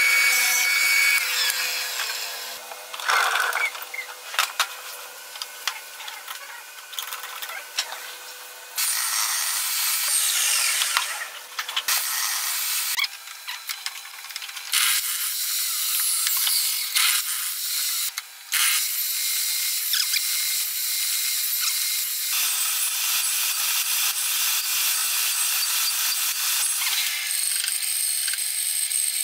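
A series of woodworking machines cutting wood in short edited clips: first a hollow-chisel mortiser plunging into a timber, then a table saw cutting box-joint slots through a jig, and near the end a bandsaw running steadily through a block. The sound changes abruptly at each cut between clips.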